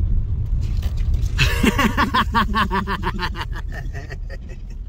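A car driving, heard from on board: a steady low rumble of engine and road noise. A pitched sound with a quick pulsing pattern comes in about a second and a half in and fades toward the end.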